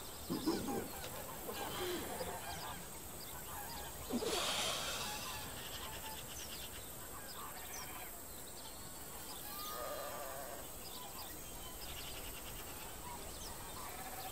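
Geese honking a few times, the loudest call about four seconds in, with small birds chirping faintly throughout.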